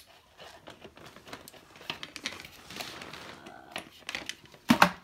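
Plastic packaging rustling and crinkling, with scattered light clicks and knocks as items are handled, and one louder knock near the end.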